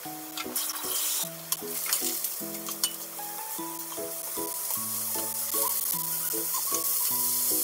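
Raw yellowtail pieces sizzling as they are laid with tongs into a hot frying pan beside sliced daikon, with a few light clicks early on. The sizzle grows louder as more pieces go in. Light background music plays along.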